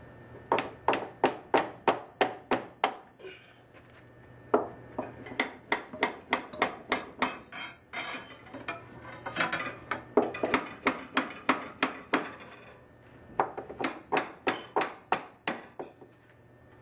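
Hammer blows driving a copper pipe brace with flattened ends up between wooden floor joists to wedge it tight. The blows come in four quick runs at about four a second, with short pauses between the runs.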